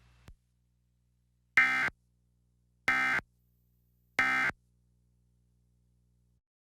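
Emergency Alert System end-of-message code: three short, identical bursts of screeching data tones about 1.3 s apart, each about a third of a second long, marking the end of the alert broadcast.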